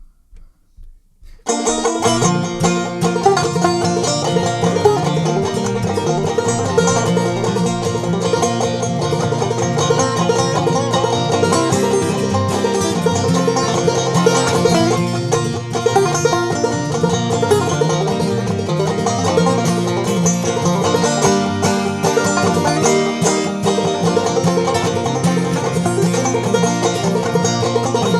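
Clawhammer banjo playing an upbeat instrumental introduction, starting suddenly after a few faint taps, over a steady line of low bass notes.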